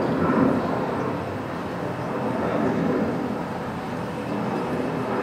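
Boeing 757-300 climbing out after takeoff, its twin jet engines heard from the ground as a steady, rushing jet noise that slowly swells and eases in loudness.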